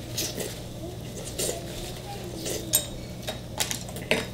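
Eating at a table: chopsticks clicking against dishes and the pot, about half a dozen short clicks, with noodles being slurped.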